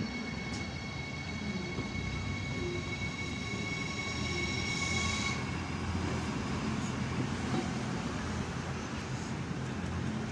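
Siemens Desiro HC double-deck electric multiple unit (RRX class 462) moving past along the platform: a steady rumble of wheels and running gear, with a high, steady electric whine that fades out about five seconds in.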